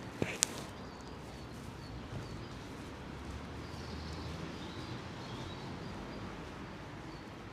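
Small birds chirping in short calls over a steady background rush, with a couple of sharp clicks about half a second in.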